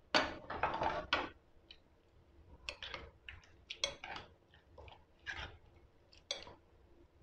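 Metal spoon stirring a wet salad of chickpeas, potato and onion in a cut-glass bowl: a rush of wet stirring at first, then irregular clinks and scrapes of the spoon against the glass.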